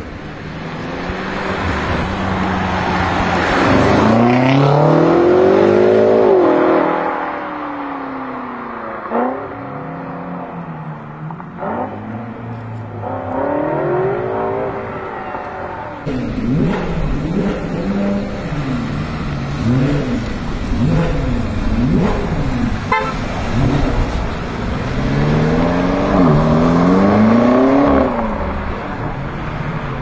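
Stage 2-tuned BMW M5 F90's twin-turbo 4.4-litre V8 exhaust revving and accelerating hard, the pitch climbing and dropping back at each gear change, with quick rev blips in the middle of the run. A few sharp exhaust pops break in.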